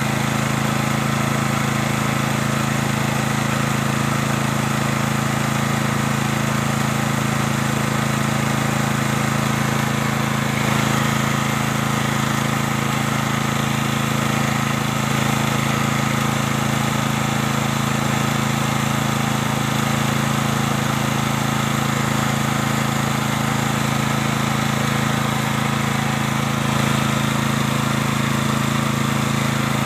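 Fort FTG7700E petrol generator's 13.5 hp engine running steadily at a constant speed, a loud even hum.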